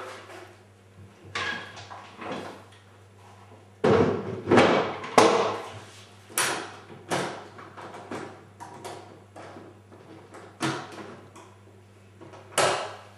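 Knocks and clatter of hard equipment cases being handled and set up, with latches, lids and panels banging. The loudest bangs come in a quick cluster about four to five and a half seconds in, then single knocks every second or two.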